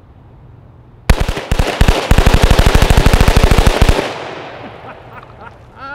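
Rapid fire from a BCM AR-15-pattern rifle with a Fostech Echo binary trigger, which fires on both the pull and the release: a few shots about a second in, then a fast, even string of about ten shots a second that stops about four seconds in, its echo fading after.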